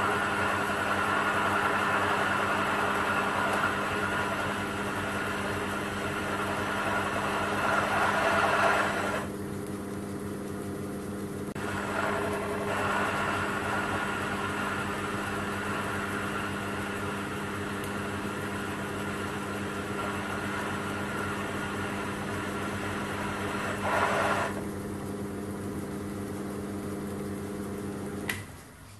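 Small metal lathe running with a steady motor hum while a carbide insert turns a steel shaft supported on a cup dead centre in the tailstock. The cutting hiss breaks off for a couple of seconds about nine seconds in, then comes back and eases off in the last few seconds, and the lathe switches off just before the end.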